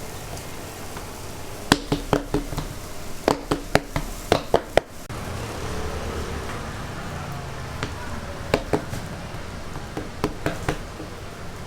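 Fermented youtiao dough being kneaded by hand, with sharp knocks and slaps against the work surface: a quick run of about ten strokes in the first few seconds, then a few more near the end.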